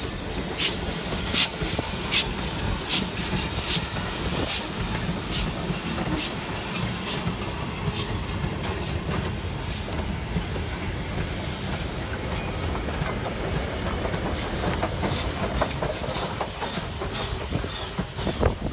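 A steam-hauled goods train rumbles past close by, its wheels clicking over the rail joints about once a second. Toward the end the USATC S160 steam locomotive draws near, and a hiss of steam rises over the rumble.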